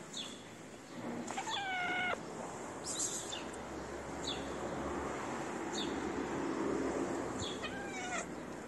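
Calico cat meowing twice, a long meow about a second and a half in and a shorter one near the end, as it begs for food.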